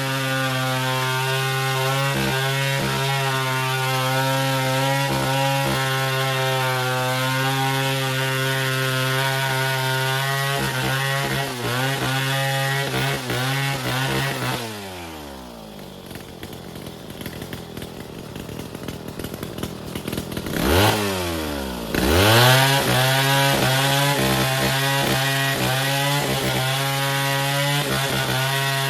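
Chainsaw running at high speed, likely cutting wood. About halfway through the throttle drops and the saw falls to a low, uneven idle. It then revs back up and runs steadily at speed again.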